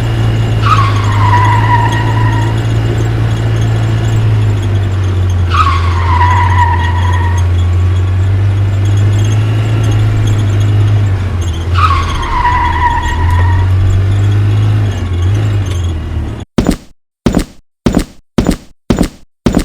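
Steady low car-engine drone with three tyre screeches, each a squeal falling in pitch, about five to six seconds apart. Near the end it cuts off suddenly into a run of short thuds, about two a second.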